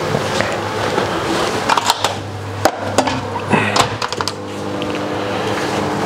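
Clicks and knocks as a food container is handled and a microwave oven's door and buttons are worked. About four seconds in, the microwave starts running with a steady hum, over a constant background hum.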